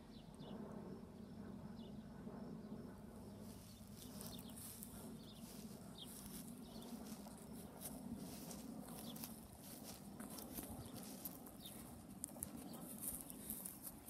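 Faint birds chirping: a few short, scattered chirps over a low steady hum, with light clicks throughout that grow more frequent toward the end.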